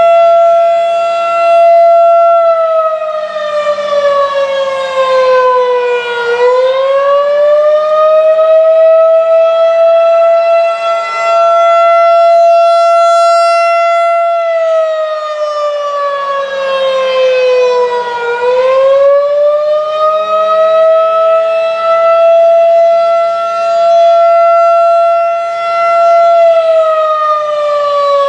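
Federal Signal 2001-DC outdoor warning siren sounding a custom attack signal as a scheduled test: one loud, steady siren tone with strong overtones. Its pitch sags over a few seconds and climbs back to hold again, twice, and starts sinking once more near the end.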